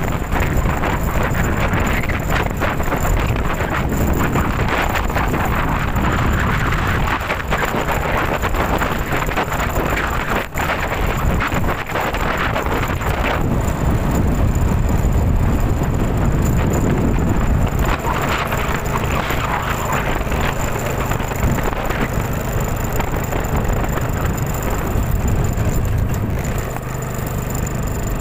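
Typhoon wind and rain: a loud, steady rush of storm noise, with wind buffeting the microphone.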